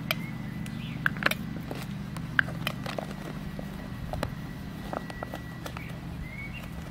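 Kooikerhondje puppies and their mother playing on grass: scattered short clicks, taps and scuffles, the sharpest about a second in, over a steady low background hum.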